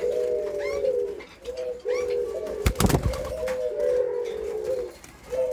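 Eurasian collared doves cooing in long, drawn-out calls, repeated with short breaks, with a brief loud flutter of wings about halfway through.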